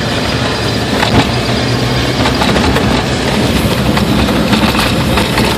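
Car driving slowly in second gear on snow-covered, bumpy roads: a steady engine hum under tyre and road noise, with frequent small clicks and knocks.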